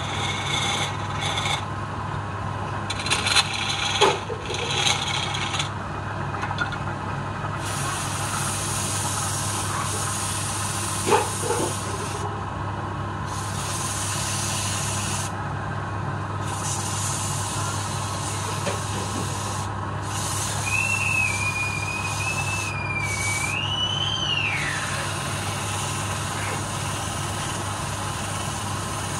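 Wood lathe motor running steadily while a palm-wood workpiece spins. A flat steel turning tool scrapes the wood in the first few seconds, with a few sharp knocks, then a hand rubs against the turning piece with a hissing rub. A high, wavering whistle-like tone rises and falls briefly around twenty seconds in.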